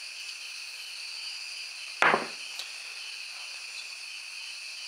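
Steady high chirring of crickets in the background, with a single loud knock about two seconds in: the glass bowl of gravy set down on the wooden table.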